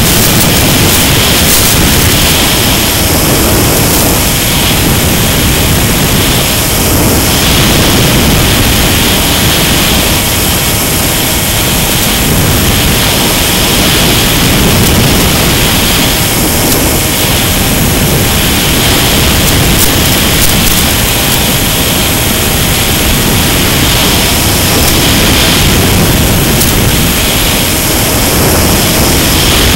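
A Mini Skywalker FPV plane in flight, heard through its onboard camera's microphone: loud, steady wind rush mixed with the electric motor and propeller noise, with a higher hiss that swells and fades every few seconds as the plane manoeuvres.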